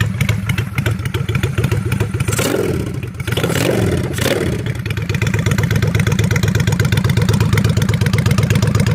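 Honda VLX 600 Shadow V-twin motorcycle engine, freshly rebuilt carburettor, running through short backdraft pipes stuffed with a cut-down stock baffle: it idles with an even pulse, is revved briefly a couple of seconds in, then settles back to a steady idle.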